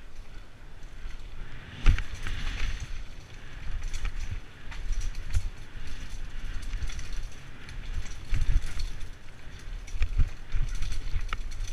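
Mountain bike ridden along a dirt singletrack, its tyres rolling over dirt and leaves with a steady low rumble. The bike rattles and knocks over bumps, the loudest knock coming about two seconds in.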